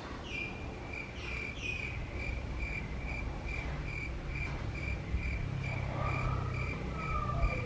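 An insect chirping: a high, even chirp repeated about three times a second, with a few falling chirps in the first two seconds. A low hum builds up in the background during the second half.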